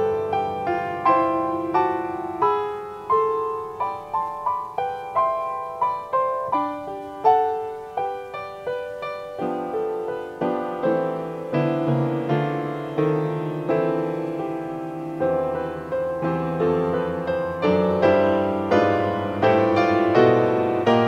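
Upright acoustic piano played solo: a slow melody of separate struck notes that ring and fade, with fuller, lower chords joining about halfway through.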